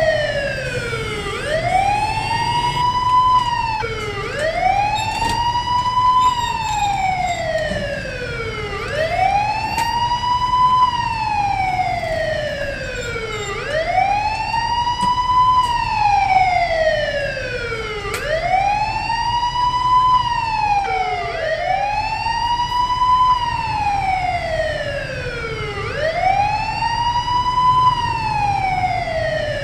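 Fire truck siren sounding a wail: each cycle rises quickly and then falls slowly, repeating every four seconds or so, over a low engine rumble.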